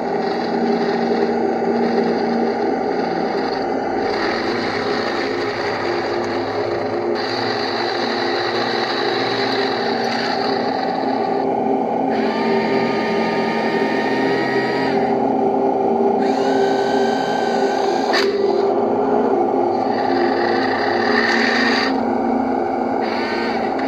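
1:16 RC Panzer IV model tank driving, its electric drive motors and gearboxes whining steadily, with higher tones that step up and hold for a second or two several times as the throttle changes. A single sharp click comes near the end.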